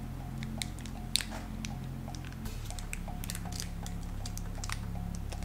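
Gold foil wrapper of a small chocolate being slowly pried open with teeth and fingertips: scattered soft crinkles and little clicks.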